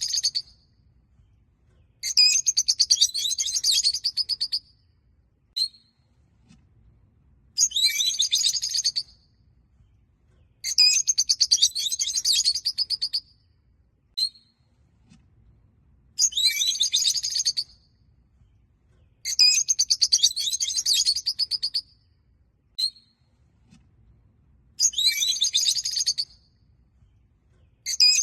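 A small flock of rosy-faced (peach-faced) lovebirds chirping in repeated bursts of high-pitched chattering, each one to two and a half seconds long. The bursts are separated by short pauses, with a single short chirp between some of them.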